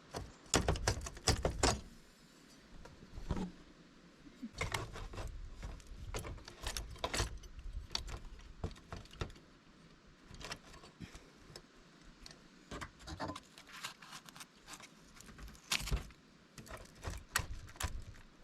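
Metal parts being handled: irregular clinks, rattles and knocks in scattered clusters.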